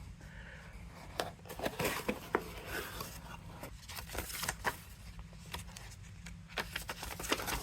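Handling and unpacking of a blood draw specimen kit box: scattered clicks, scrapes and rustles of the box and its contents being moved.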